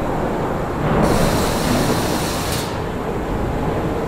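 Steady low rumble of machinery on a General Motors factory floor. About a second in, a burst of pneumatic hiss from compressed air cuts through, lasting under two seconds before stopping sharply.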